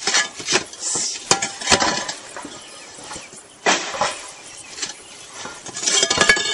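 Roof tiles being lifted and handled, knocking and scraping against each other in a series of sharp clinks, with a busier cluster of clatter near the end.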